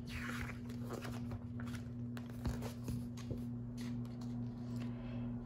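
Page of a picture book being turned by hand: a soft paper rustle with a few light taps, over a steady low hum.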